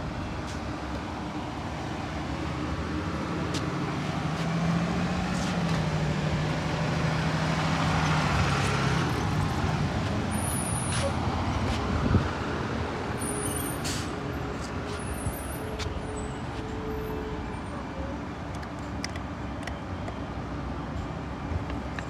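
Road traffic: a heavy vehicle's engine hum rises and falls as it passes, loudest about a third of the way in, over a steady bed of traffic noise. A few sharp clicks come in the second half.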